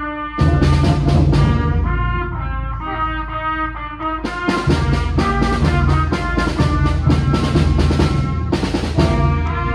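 Student concert band of clarinets, flutes, saxophone and brass playing a piece together in sustained chords. A regular drum beat comes in about half a second in, drops out for a couple of seconds, and returns about four seconds in until shortly before the end.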